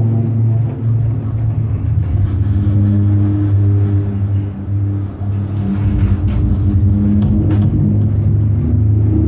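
Drum feedback: a loud, steady low drone with higher held feedback tones fading in and out above it as the drums are moved, and a few light knocks between about six and eight seconds in.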